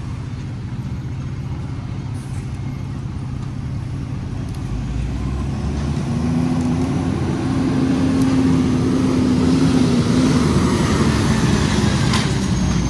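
Street traffic rumbling, then a flatbed lorry's engine growing louder as it approaches and passes close by, with a steady droning note; it is loudest in the last few seconds.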